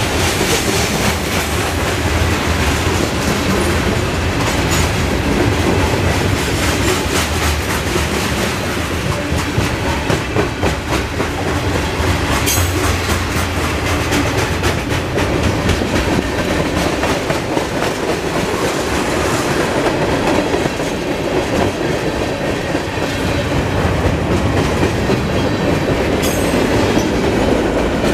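Freight cars of a mixed manifest train rolling past at close range: a steady rumble with a rapid clickety-clack of steel wheels over the rail joints.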